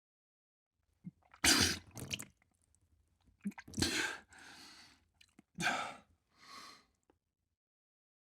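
A person retching and vomiting in three heaves, about two seconds apart, each followed by a fainter breath or spatter.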